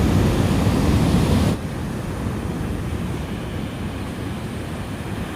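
Ocean surf with wind buffeting the microphone: a loud rushing that drops off abruptly about a second and a half in, then softer steady surf.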